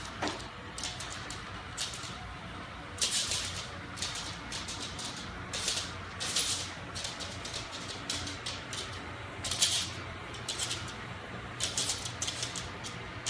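Robot vacuum cleaner running with a steady low motor hum, its brushes sucking up debris that rattles and clicks in irregular bursts.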